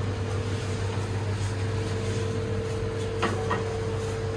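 Steady electrical hum of a shop's running fans and cooling appliances, with a constant tone held above it. Two short clicks come a little after three seconds in.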